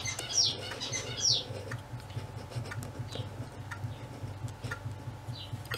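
Light clicks and taps of a plastic model-kit sprue of tank track pads being handled, over a steady low hum. A few short, high, falling chirps sound in the first second and a half.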